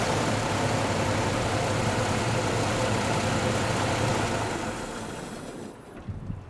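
Rolls-Royce Phantom II's straight-six engine idling steadily. The sound fades away over the last couple of seconds.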